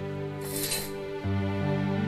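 Soft, sad background music with sustained chords that change about a second and a quarter in. About half a second in there is a brief swish of a curtain being drawn aside.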